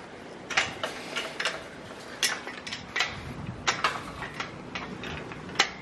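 A string of irregular sharp clicks and snaps, about a dozen of them spread unevenly, over a steady faint hiss.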